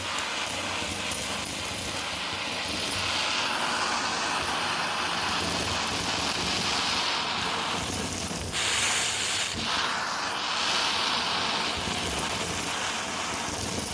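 Vacmaster Captura vacuum cleaner running: a steady rush of motor and suction whose hiss swells and fades every few seconds.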